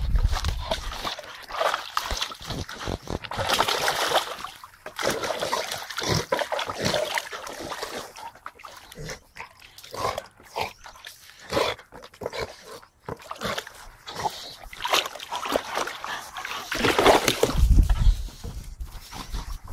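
Blue Staffordshire bull terriers tussling with a basketball: water splashing and sloshing in a plastic paddling pool, then dog sounds as they go after the ball on grass. Low rumbles of handling on the microphone near the start and near the end.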